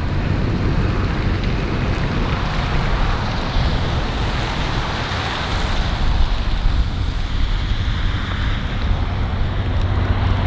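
Toyota 4Runner's V6 engine running as the SUV drives and turns on a snow-covered road, a steady low rumble with wind buffeting the microphone.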